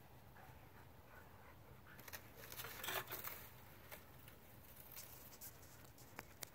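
Faint scattered scuffs and crunches of steps on sandy ground as dogs move about, a short flurry of them about three seconds in, over a low steady background rumble.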